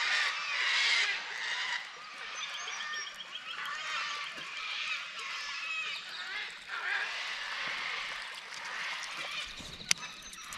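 Many birds calling over one another in an early-morning chorus, with a quick run of short repeated notes about two and a half seconds in. Near the end there is a sharp click and some low bumping.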